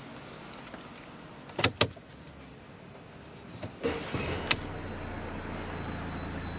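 Two sharp clicks, then about four seconds in a Mercedes-Benz engine starts and settles into a steady idle, with a faint high electrical tone over it.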